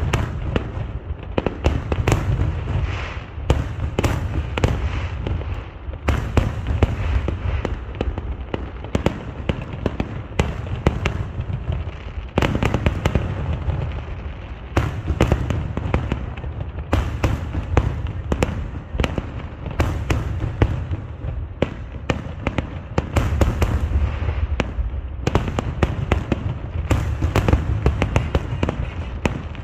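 A fireworks display: many shells bursting in quick succession, sharp cracks and crackles over a continuous low booming rumble.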